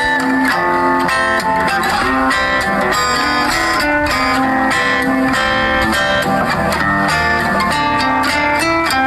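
Background music led by a plucked and strummed guitar.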